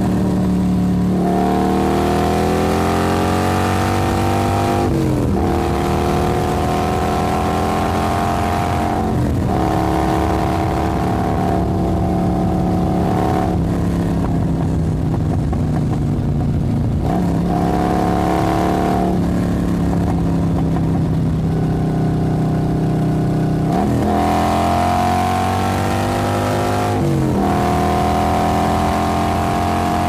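Motorcycle engine running under way. Its pitch climbs with the throttle, then drops abruptly and climbs again, about every four seconds.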